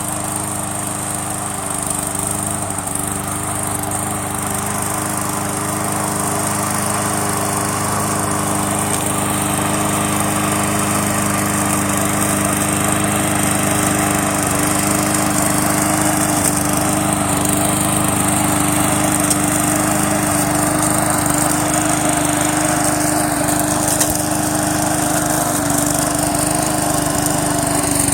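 Small gasoline push-mower engine running steadily on a remote-controlled mower as it drives up a slope, gradually getting a little louder.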